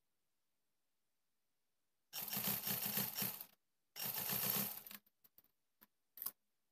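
Black domestic sewing machine stitching in two fast runs, about a second and a half and then about a second long, each a rapid even clatter of the needle mechanism; a few light clicks follow near the end.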